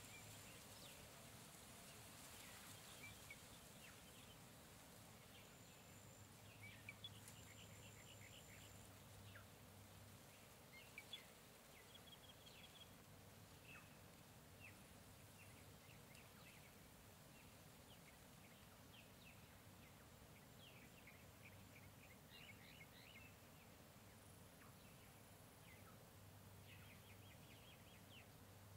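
Faint jungle ambience: many short bird chirps and calls scattered over a steady low background hiss, with a few brief high thin whistles in the first ten seconds.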